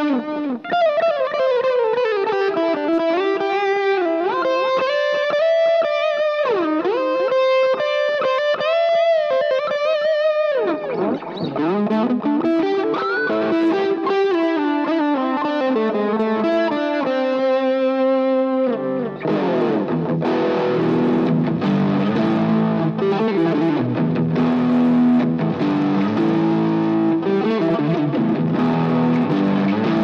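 Electric guitar played through a Cuvave Cube Baby multi-effects pedal on its high-gain distortion setting. It plays single-note lead lines with string bends, then switches about two-thirds of the way in to dense distorted chords.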